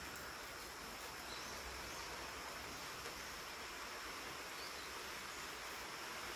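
Quiet, steady background hiss with a faint high-pitched whine held throughout; no distinct events.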